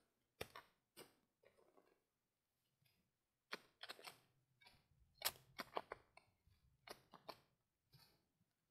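Spade digging into loose, soft fill: a series of short sharp scrapes and knocks of the blade, most of them bunched together in the middle.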